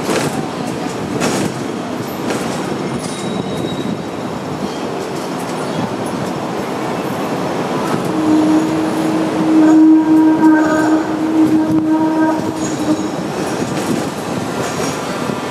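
Hong Kong double-decker tram running on its rails, heard from the top deck: a steady rumble and rattle of wheels and car body. About halfway through, as the tram rounds a curve, a louder sustained squeal from the wheels on the rails holds for about five seconds, then fades.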